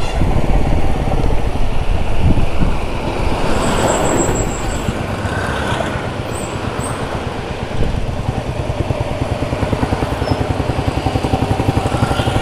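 Royal Enfield Bullet 350's single-cylinder engine running as the bike rides along, its exhaust pulses fast and even, heard from the rider's seat with road and traffic noise.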